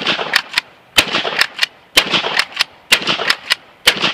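Pump-action shotgun fired five times in steady succession, about one shot a second, each report ringing out briefly. Between shots come two fainter clacks, the slide being racked back and forward.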